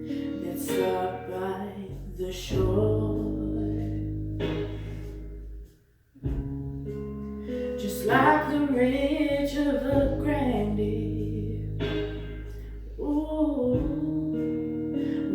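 Song with guitar accompaniment and singing, with a brief pause about six seconds in.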